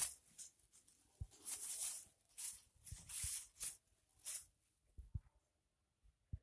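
Clear plastic sheeting over a crate of iced fish crinkling in several short bursts as it is handled, with a few soft low knocks.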